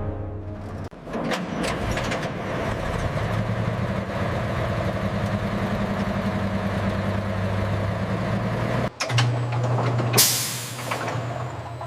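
Heavy engine running with a steady low drone. It drops out for an instant about nine seconds in and comes back as a stronger, steadier hum. About a second later there is a sudden loud burst of hissing air that fades away.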